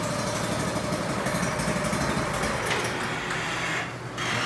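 Briggs & Stratton 208cc single-cylinder engine of a two-stage snowblower running steadily just after its first cold start, still on choke. Its loudness dips briefly near the end.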